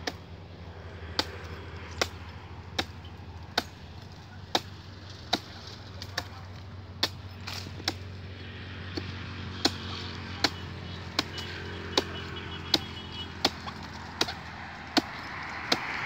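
A hand blade chopping into a wild date palm's trunk, cutting away the old leaf bases to clear the tree for toddy tapping. It strikes sharply and evenly, a little more than once a second.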